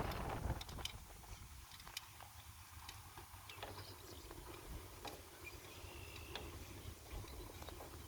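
Cattle grazing, with faint irregular snaps and crunches of grass being torn, over a low wind rumble on the microphone. A gust dies away in the first half second.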